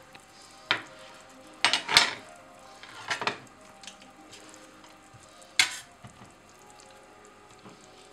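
Cutlery clinking and knocking against a plate: a handful of sharp, irregular clicks, with a small cluster about two seconds in.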